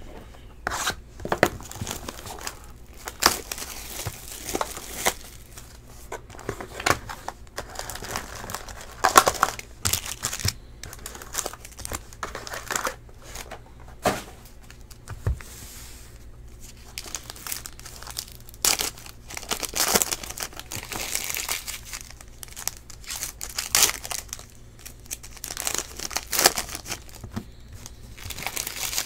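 Box wrapping and foil trading-card packs crinkling and tearing as a sealed box of football cards is opened and its packs handled and ripped open. The crinkles and rips come at irregular intervals, with several louder bursts.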